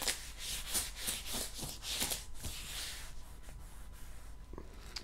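A hand rubbing back and forth over the clear plastic film of a diamond painting canvas, a run of swishing strokes that grow fainter about halfway through, to press out trapped air.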